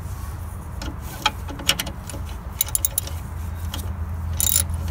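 Light metallic clicks and clinks of a socket wrench and extension against the engine's bolts and brackets, a handful of separate ticks with a small cluster near the middle and another near the end, over a steady low background hum.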